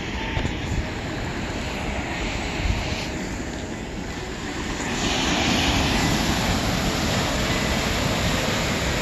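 Ocean surf breaking and washing against shore rocks, a steady rushing that grows louder about five seconds in, with a low rumble of wind on the microphone.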